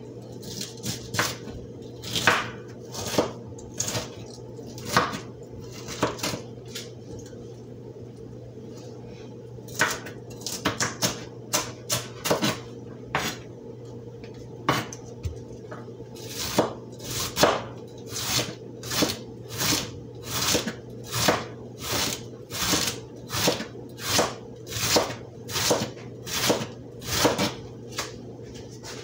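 Chef's knife chopping cabbage into thin shreds on a cutting board: a run of sharp knife-on-board strikes, about one and a half a second, with a couple of short pauses.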